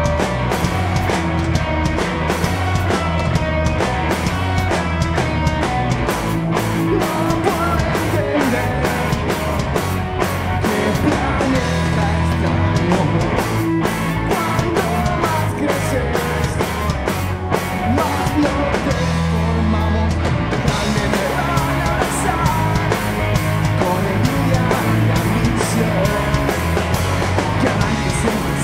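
Live punk rock band playing loudly: electric guitar, bass guitar and a full drum kit with crashing cymbals.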